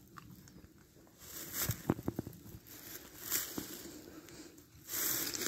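Faint crunching and crackling of dry fallen leaves underfoot, in scattered irregular crackles, with a louder rustle near the end.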